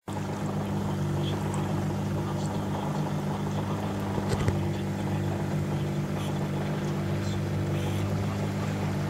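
A Cornish Crabber sailing boat's inboard engine running steadily under way, a constant drone. There is one short knock about four and a half seconds in.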